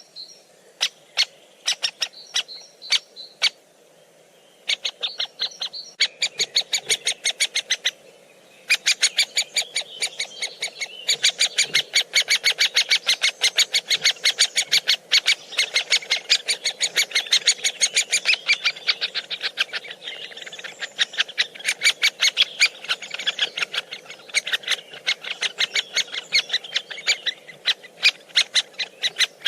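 Woodpecker pecking at food in sharp, rapid taps. The taps are sparse and irregular at first, then come in a steady run of about four to five a second from about nine seconds in. Other bird chirping sounds behind them.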